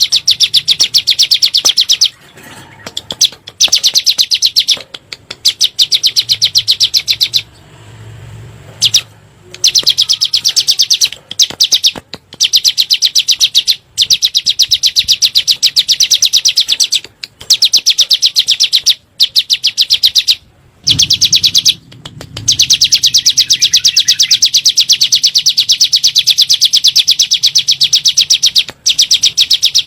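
Ciblek gunung, a prinia, singing its 'nembak' song: very fast trains of sharp, high, repeated notes, delivered in bouts of one to a few seconds with short breaks, the longest bout lasting about six seconds in the second half.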